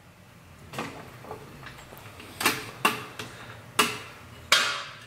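Sharp clicks and clunks, about five of them with the last two the loudest, as a floor jack is let down and the Mercedes W126's front suspension drops, the control arm lowering onto the air bag.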